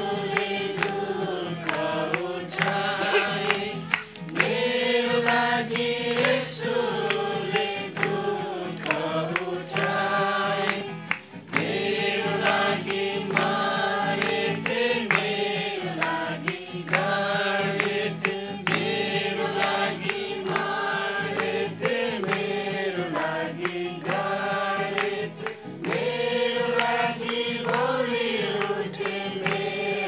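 A group of voices singing a hymn together, in phrases a couple of seconds long with short breaths between them.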